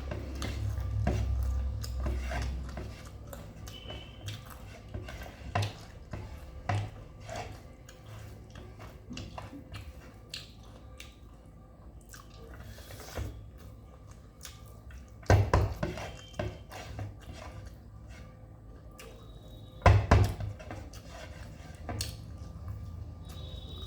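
Eating sounds: chewing and small scattered clicks and clinks of a meal being eaten from a plate. There are two louder clusters of knocks, about fifteen and twenty seconds in.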